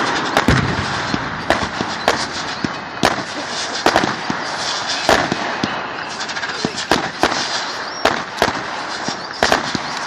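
Fireworks going off in a dense, irregular string of sharp bangs, several a second, over a constant crackle.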